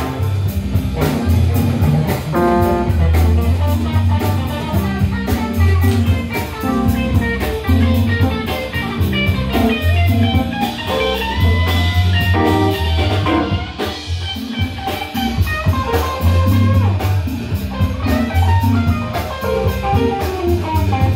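Live band playing blues-style rock: electric guitars over bass and a drum kit, with a steady beat.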